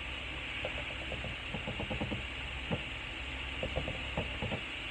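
Silicone spatula stirring diced onions sautéing in butter in a pan: scattered soft clicks and scrapes of the spatula against the pan over a steady low sizzle.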